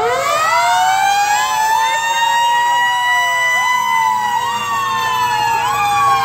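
Fire engine siren winding up, rising in pitch over the first two to three seconds and then holding high. A second siren tone rises and falls over and over on top of it.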